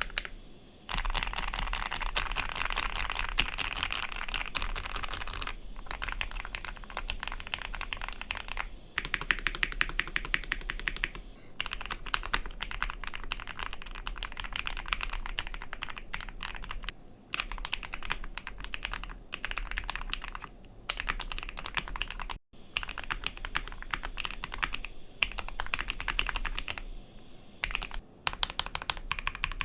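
Ikki68 Aurora mechanical keyboard with Gateron CJ linear switches being typed on fast and continuously, a dense run of keystroke clacks broken by a few short pauses.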